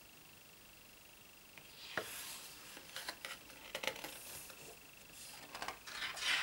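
Thick pages of a large photobook being turned and smoothed by hand: a sharp paper crackle about two seconds in, then scattered rustles of paper and fingers sliding on it, with another burst of rustling near the end.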